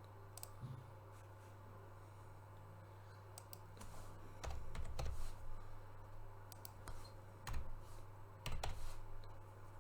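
Scattered clicks and keystrokes from a computer mouse and keyboard, bunched in a few short runs, over a steady low hum.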